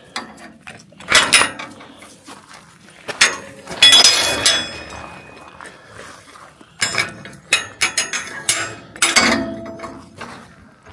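Irregular knocks and clinks of hard, partly metal objects being handled, one about four seconds in with a short high ringing and another a little after nine seconds with a lower ringing tone.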